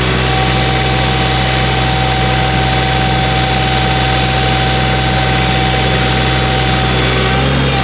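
Excavator's diesel engine running steadily, with a constant high whine over the low drone.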